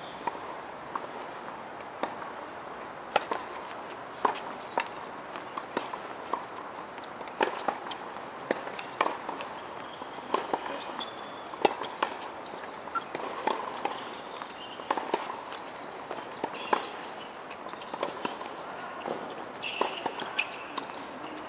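Tennis balls struck and bouncing on hard courts: scattered sharp pops at irregular intervals, a few each second at the busiest, over a steady outdoor background hum.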